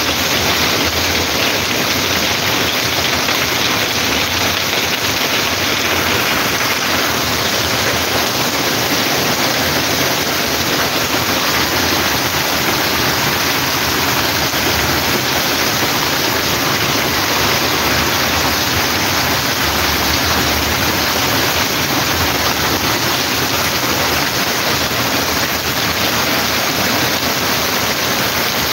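Heavy rain pouring down steadily and loudly, with runoff water rushing along the flooded street.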